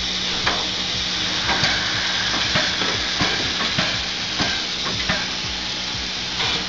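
Steam locomotive 23 1097, a DR class 23 Neubau engine, hissing steadily as it creeps forward at walking pace, with irregular metallic clanks and knocks from the running gear and track.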